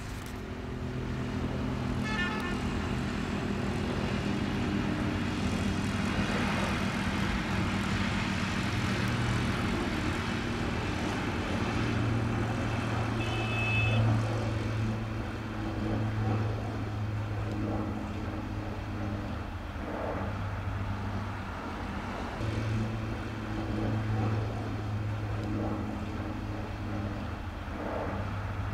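Twin-turboprop Beechcraft King Air 350 flying overhead: a steady propeller drone with several low held tones that swell and fade as it passes.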